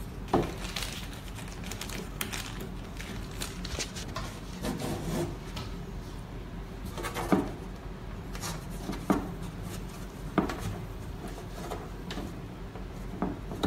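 Hand work on a wooden CD rack's hardboard back panel with a screwdriver: a few sharp knocks and clicks spread several seconds apart, with rubbing and handling noise in between.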